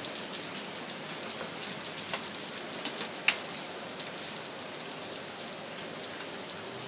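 Small hailstones falling with rain: a steady hiss scattered with many sharp ticks of stones landing, one louder tick a little past three seconds in.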